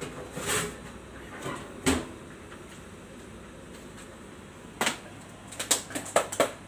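Food-handling sounds at a kitchen counter: a few scattered clicks and rustles, then a quick run of light clicks and taps near the end, as gloved hands work toppings over trays of crisp fried potato strips and handle a small plastic cup.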